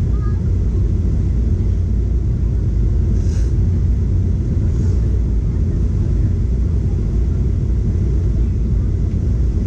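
Steady low cabin rumble of a Boeing 737 in flight: engine and airflow noise heard from inside the passenger cabin. There are two faint, brief hisses about three and five seconds in.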